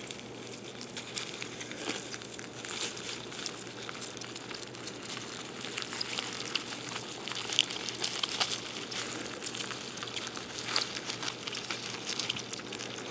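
Light rustling and crinkling with many small scratchy clicks, as a container of feeder cockroaches is searched through to catch one.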